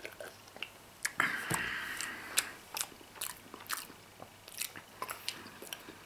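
A person chewing a mouthful of Emmentaler cheese, with irregular wet mouth clicks and smacks, and a breathy rush for about a second and a half soon after the start.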